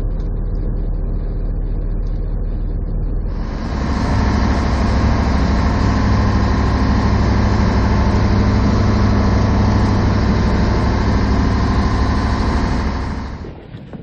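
Boat's engine running, throttling up sharply about three seconds in, holding at the higher speed, then easing back off near the end.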